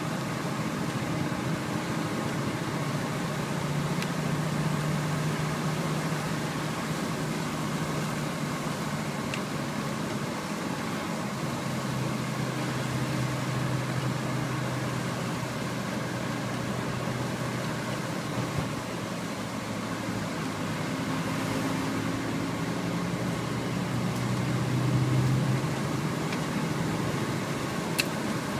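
Car engine hum and road noise heard from inside the cabin while driving. The engine's pitch rises and falls a little as the speed changes.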